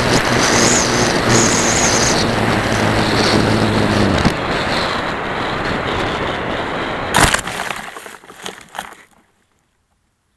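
Onboard sound of a Phoenix 2000 RC glider: heavy wind rush over the airframe with the electric motor and propeller whining, the motor cutting out about four seconds in. About seven seconds in a sharp crash as the glider hits a berry tree, followed by a few cracks and rustles of branches.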